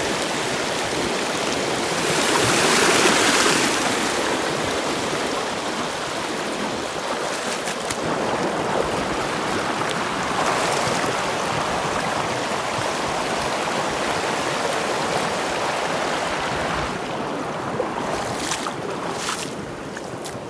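Muddy rainwater runoff rushing steadily through a ditch, a strong even rush of flowing water that eases about seventeen seconds in, with a few clicks near the end.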